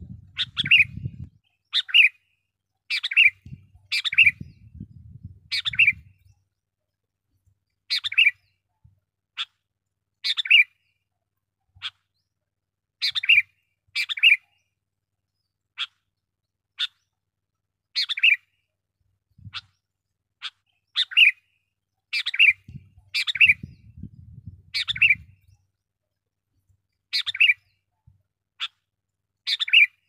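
Sooty-headed bulbul (kutilang) calling: short, sharp chirps, one or two notes at a time, repeated about every second or two with a few brief pauses.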